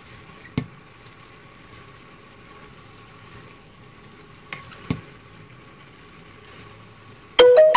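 Savoy cabbage and rice noodles sizzling in a stainless steel pan, stirred with a utensil that knocks against the pan once about half a second in and twice more near five seconds. Near the end, music with plucked or piano notes starts.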